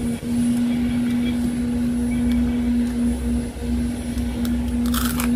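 A steady low mechanical hum drones throughout. Near the end comes a short crisp crunch as a fried potato chip is bitten.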